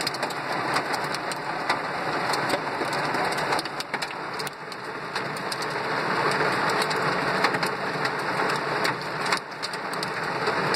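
Heavy rain and small hailstones pelting a car's roof and windshield, heard from inside the car: a dense steady hiss scattered with many sharp ticks of stones striking.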